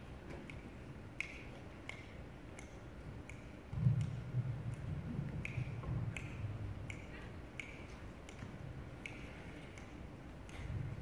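Faint, evenly spaced clicks, about one every 0.7 seconds, keeping a steady pulse, with a low rumble and bumps from about four to seven seconds in and again briefly near the end, as the microphone on its stand is handled.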